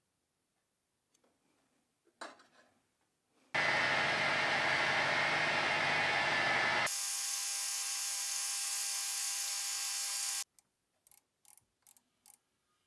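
Metal lathe running and turning down a metal shank, a loud steady cutting noise lasting about seven seconds whose tone changes abruptly partway through before it stops. Near the end come a few short clicks from a micrometer closed on the part.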